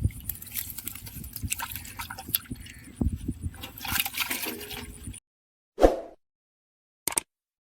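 Water splashing and sloshing with irregular knocks, from people working a net in a shallow stream. It cuts off abruptly about five seconds in, and then comes a single short burst of sound and a couple of clicks.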